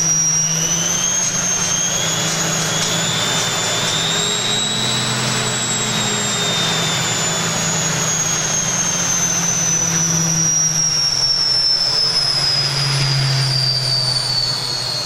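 Empty washing machine drum and motor spinning at very high speed, with a high-pitched whine over a low hum. The whine rises for the first few seconds, then falls steadily as the machine slows.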